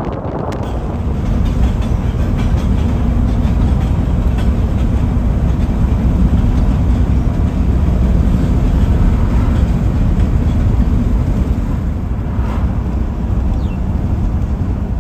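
Steady low rumble of a freight train of covered hoppers rolling along, heard from a vehicle pacing it on the road beside the track and mixed with the vehicle's own road and wind noise.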